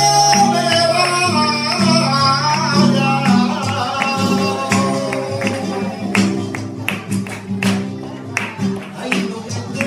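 Flamenco singing (cante) with a long, bending sung line over a flamenco guitar, with sharp palmas handclaps coming thick and fast in the second half.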